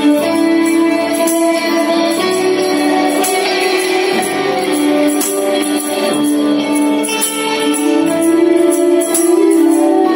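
Live worship band playing a song: sustained Roland keyboard chords over bass guitar and drum kit, with regular high percussion hits on the beat.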